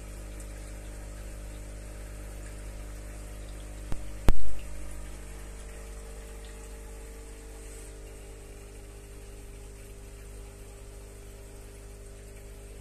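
Aquarium filter pump humming steadily, with water moving in the tank. About four seconds in, a small click is followed by a sharp, loud knock.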